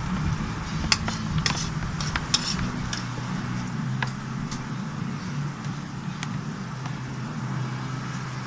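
Slime being mixed and worked by hand, giving scattered short sticky clicks and snaps, most of them in the first three seconds, over a steady low hum.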